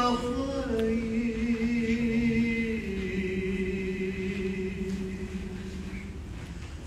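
A solo male voice chanting a Jewish prayer, holding long drawn-out notes with a slight vibrato. The pitch steps down about a second in and again near three seconds, then the held note slowly fades.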